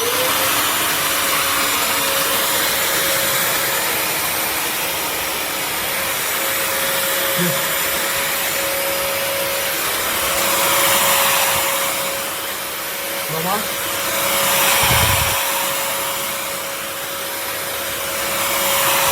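Bissell CrossWave HydroSteam Pet wet-dry floor cleaner switching on and running, a steady motor whine over the rush of its suction and brush roll. The rush swells and eases every few seconds as it works over the floor, with a short low thump about 15 seconds in.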